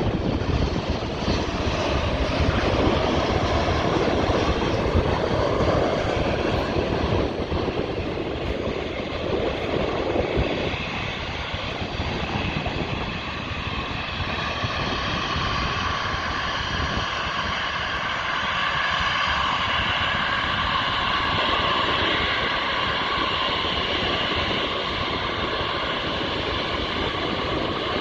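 Jet airliner's engines on its landing at London City Airport: a loud rushing noise at first, then a steady high whine from about halfway.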